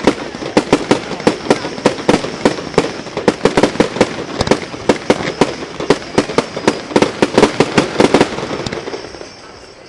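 Aerial fireworks bursting in a rapid barrage, several sharp bangs a second, thinning out and dying away near the end.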